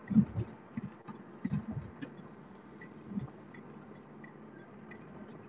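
Car cabin noise while driving: a steady low rumble with a few short low thumps in the first two seconds and another about three seconds in, and faint scattered ticking.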